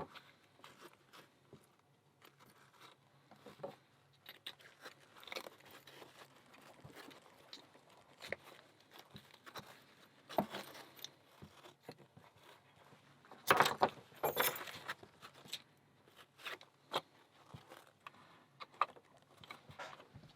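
Small metal parts of an American 1100 padlock and its tools being handled while it is re-pinned and put back together: scattered light clicks and rattles, with a louder burst of clatter about two-thirds of the way through.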